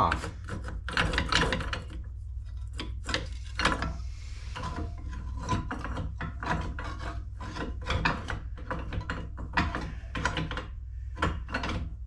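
Brake pads being pried up and slid off their adjuster hardware: irregular metal scrapes, clicks and clanks, over a steady low hum.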